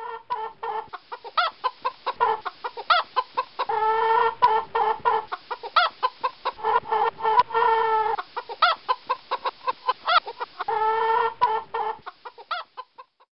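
Chicken clucking in quick repeated clucks, with a longer drawn-out call about every three and a half seconds.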